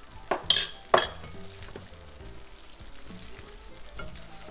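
Chicken in a cream sauce sizzling and bubbling in a frying pan, with three sharp clinks against the pan between about a third of a second and a second in.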